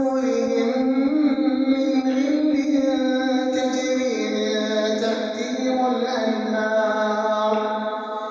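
Male voice reciting the Quran in slow, melodic tajweed, drawing out long held notes that step to new pitches several times.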